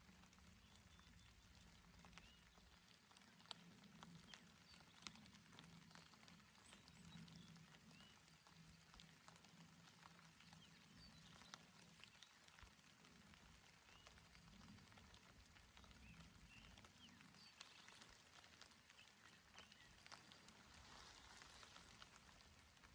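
Faint, gentle rain falling steadily, with scattered individual drops ticking close by.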